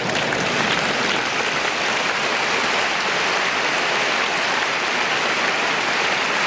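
Large audience applauding steadily, a dense, even clatter of many hands clapping.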